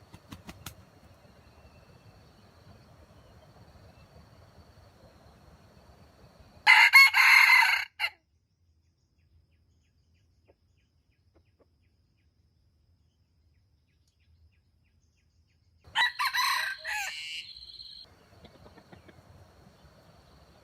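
Junglefowl rooster crowing twice, each crow short and loud, about nine seconds apart.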